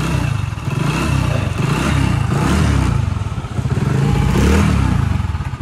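Kick-started petrol motorcycle engine running on choke just after a cold start from standing overnight. Its speed rises and falls twice, and the level drops off right at the end.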